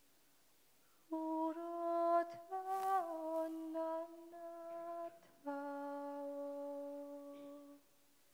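A woman's voice singing a Khevsur lullaby (nana) unaccompanied in long held notes, starting about a second in. One note in the middle rises and falls back, and after a short pause a last long note is held and stops shortly before the end.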